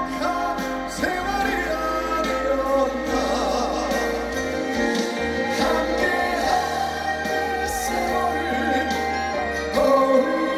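A live trot song: a male singer sings into a handheld microphone over a full musical accompaniment, amplified through the stage sound system.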